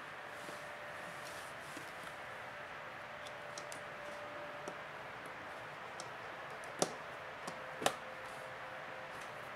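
Small clicks and taps from hands pressing the Samsung Galaxy Tab 3's plastic frame and bezel together, with two sharper clicks about a second apart past the middle.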